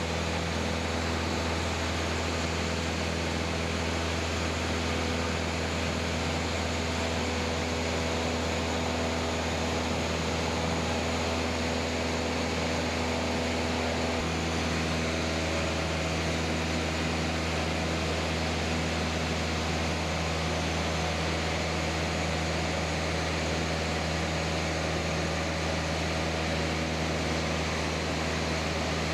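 Cessna light aircraft's piston engine and propeller heard from inside the cabin in cruise, a steady loud drone with a low hum and a wide rushing noise. The engine's pitch shifts slightly about halfway through.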